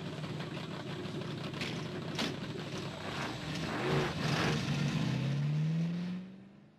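Hot-rod V8 engine of a yellow 1932 Ford coupe running and revving, louder from about four seconds in, with its pitch climbing near the end before the sound fades out.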